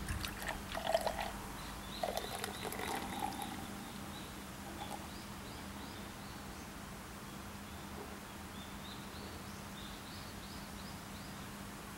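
Beer poured from a large glass bottle of Sapporo into a glass: a few glugs and light clinks in the first three seconds or so, then a thin, quiet stream. Small birds chirp in short series over it.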